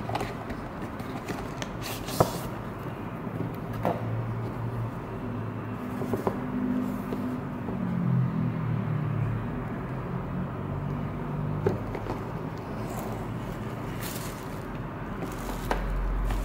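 Hands handling a cardboard watch box and bubble wrap: a few light taps and clicks and soft scraping over a steady low background rumble.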